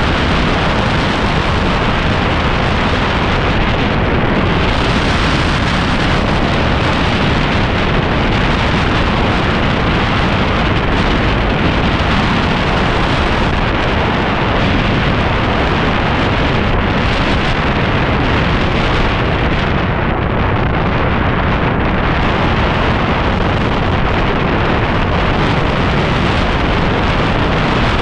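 Loud, steady wind buffeting the camera microphone on a motor scooter riding at speed, a rushing roar with no distinct engine note.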